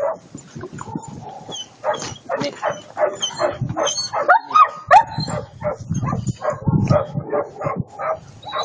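German Shepherd puppy and another dog whining and yipping in excited greeting, in short irregular bursts, with a few sharp whines that rise and fall in pitch about halfway through.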